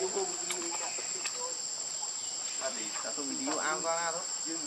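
Insects singing in a steady, high-pitched chorus that does not change, with a short run of voice sounds about three and a half seconds in.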